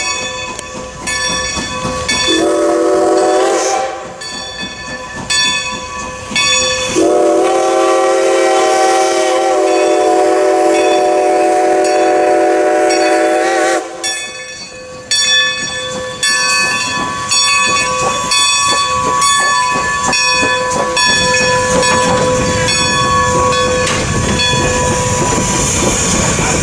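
Steam locomotive's chime whistle, several tones at once: a short blast, then a long blast of about seven seconds, typical of a whistle signal for a road crossing. The locomotive and its coaches then pass close by, with loud exhaust and rail noise.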